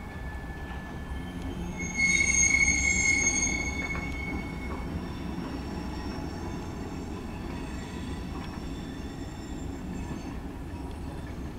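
Freight cars of a manifest train rolling past with a low rumble of wheels on rail and a steady high-pitched wheel squeal, loudest about two seconds in and then easing off.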